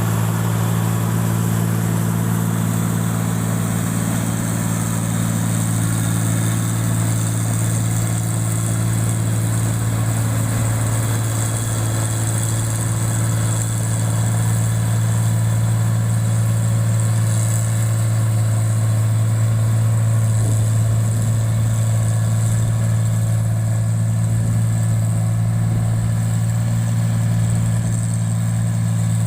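Rotary rice-processing machine running steadily, with a constant low hum that holds unchanged throughout.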